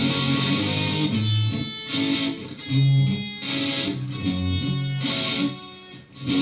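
Instrumental break of a multitrack song demo: electric guitar chords with low notes moving beneath, briefly dropping out just before the end.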